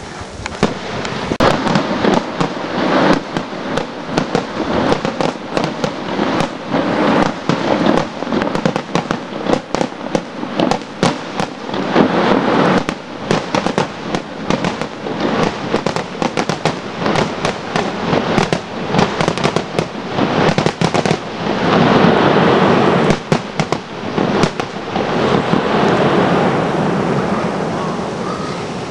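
Fireworks going off: a long, rapid, irregular string of sharp bangs and crackles. It thickens into a denser volley about 22 seconds in, then dies away.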